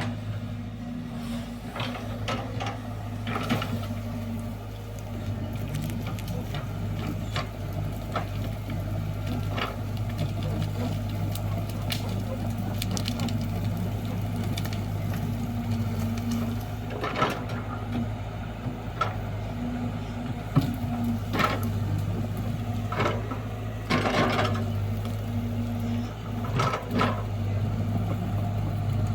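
Excavator's diesel engine running steadily under load, with scattered knocks, clanks and scrapes from the bucket and arm working the soil.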